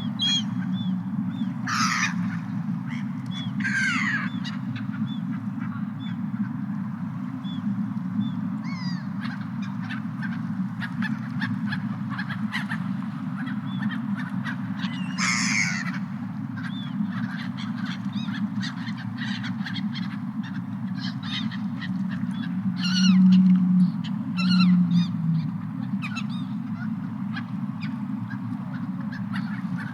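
Seagulls calling in short, scattered cries over a steady low rumble. The rumble swells briefly twice about three quarters of the way through.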